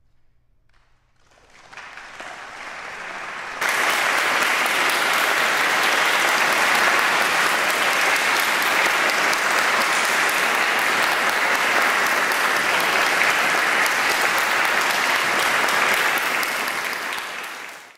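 Concert audience applauding. The clapping starts about a second in, swells, jumps louder a few seconds in, holds steady and dies away at the very end.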